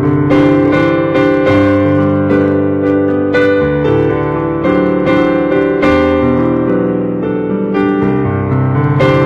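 Piano music: slow, held chords with new notes struck every second or so.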